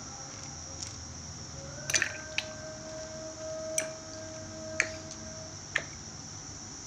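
Shvet bhallatak (marking nut) fruits dropped one at a time into a glass of water: about five sharp clicks and plops, roughly a second apart, the loudest about two seconds in.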